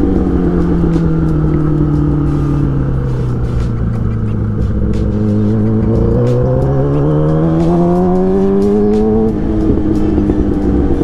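Sport motorcycle engine heard from the rider's seat over wind noise: the revs fall steadily as it slows into a bend, then climb again from about six seconds in as it accelerates out, dropping suddenly near the end at a gear change.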